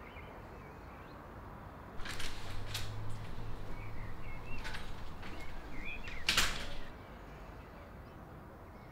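A glazed hinged patio door clicks open about two seconds in, letting in outdoor ambience with birds chirping. About four seconds later the door shuts with a loud bang.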